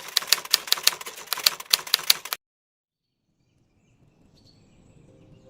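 Rapid, irregular typing clicks, about five or six keystrokes a second, stopping abruptly about two and a half seconds in. After a second of dead silence, a faint background hiss fades in.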